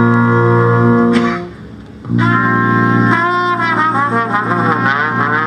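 Brass quintet playing: a long held chord fades out about a second in, and after a brief pause a new chord begins with a wavering solo line moving over it.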